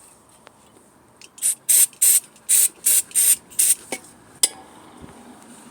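Aerosol brake cleaner sprayed in about seven short, quick bursts of hiss onto the brake caliper parts, followed by a single sharp click.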